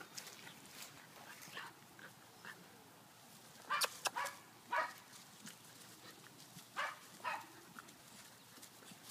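Two 11-week-old puppies yipping and giving small barks as they play-wrestle, in short sharp calls: a quick run of them about four seconds in and a couple more around seven seconds.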